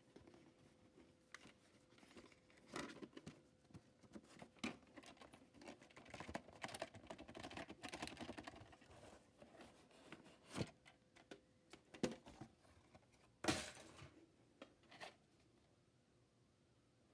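Faint handling of a VHS cassette and its cardboard sleeve: a stretch of rustling and scraping as the cassette slides out of the sleeve, with scattered plastic clicks and knocks, the sharpest about thirteen seconds in.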